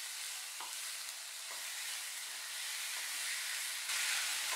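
Chopped vegetables sizzling in mustard oil in a non-stick wok while being stirred with a spatula, with a few light scrapes. The sizzle gets louder about four seconds in.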